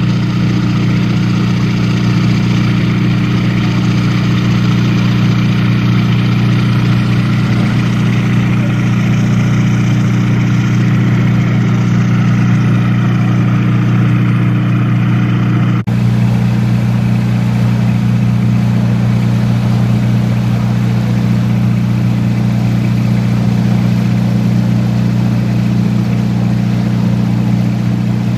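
Steady low drone of a fjord sightseeing boat's engine heard from the deck, cut off abruptly once about halfway through and then running on.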